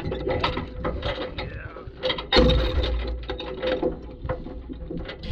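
Heavy steel tie-down chain clinking and clanking against a wooden trailer deck as it is pulled through and hooked, with a heavier clunk about two and a half seconds in.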